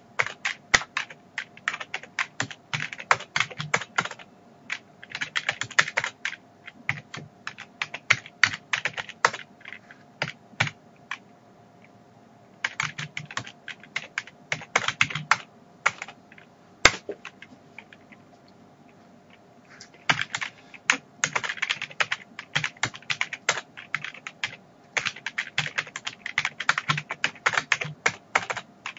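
Typing on a Compaq computer keyboard: rapid runs of key clicks in bursts, with a few seconds of lull past the middle broken by a single louder keystroke.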